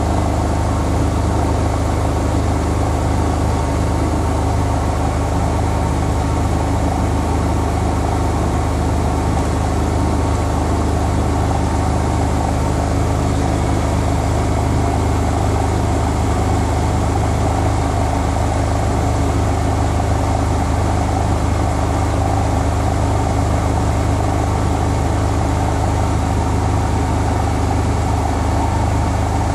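Bosch Home Professional WAY32742 front-loading washing machine turning its drum, with a steady low motor hum and the rush of water in the drum at an even level.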